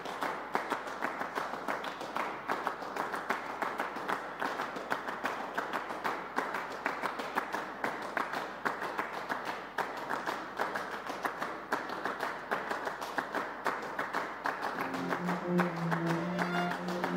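Audience applauding steadily. Near the end, music comes in with a few low sustained notes.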